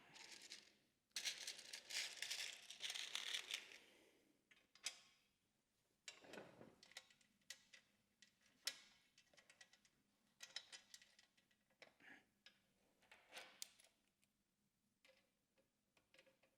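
Faint handling noises of floorboard plates and screw hardware: scattered light clicks and taps, with a longer rustle about a second in.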